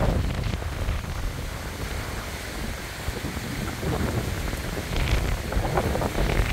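Gusty wind and rain from an approaching hurricane, with the wind buffeting the microphone as a steady low rumble.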